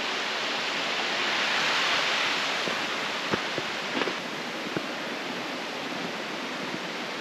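Mountain stream rushing through a gorge, a steady wash of water noise that swells a little in the first few seconds, with a few light knocks near the middle.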